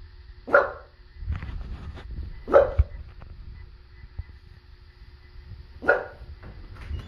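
Dog barking: three single barks, the first about half a second in, then about two and three seconds apart.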